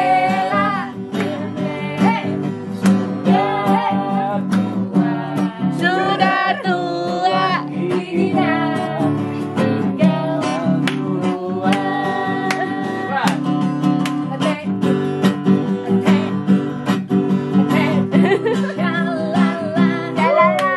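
Acoustic guitar played live with a voice singing along.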